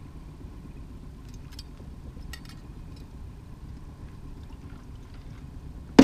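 Steady low rumble of a small aluminium fishing boat moving slowly at trolling speed, with a few faint clicks, ending on a sharp knock as the landing net comes down on the deck.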